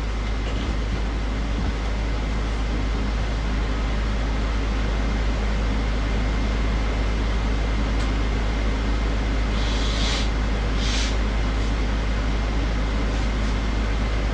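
A steady low background rumble, with two short hissing bursts about ten and eleven seconds in.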